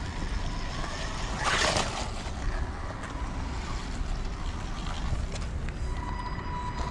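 Wltoys 12429 RC buggy's 550-size electric motor and drivetrain running as it drives, with a faint steady whine near the end. Wind rumbles on the microphone throughout, and there is a brief rush of noise about a second and a half in.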